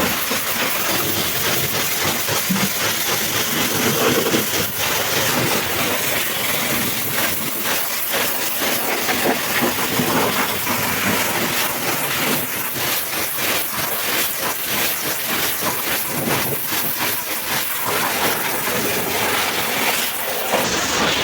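High-pressure washer jet spraying water onto a muddy truck: a steady, loud hiss of spray, broken by many rapid spattering clicks from about eight seconds in.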